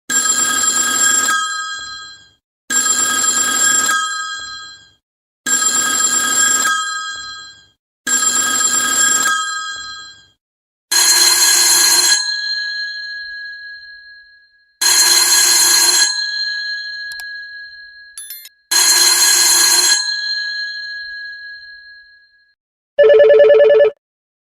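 Old telephone bells ringing in bursts: four rings of about a second and a half each, evenly spaced, then a different bell giving three rings that keep sounding longer after each burst. Near the end a third, lower-pitched ringer starts.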